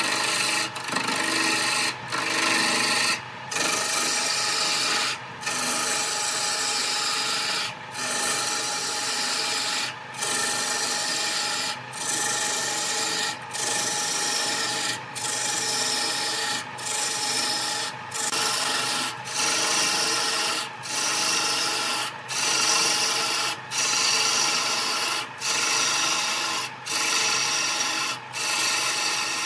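A turning tool cutting into a spinning wooden cylinder on a wood lathe, a continuous scraping and shaving sound with the lathe's motor humming underneath. The cutting breaks off briefly about every one and a half seconds, then resumes.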